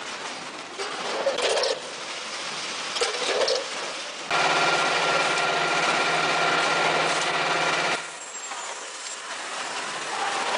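Automatic weighing and bag-sealing packing machinery running, with irregular clattering in the first few seconds. About four seconds in, a louder steady machine hum with a held whine starts. It cuts off suddenly about four seconds later, leaving a quieter running noise.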